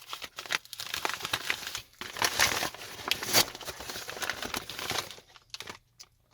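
Packaging being crinkled and torn open by hand: a dense run of crackles and rustles that thins out and stops near the end.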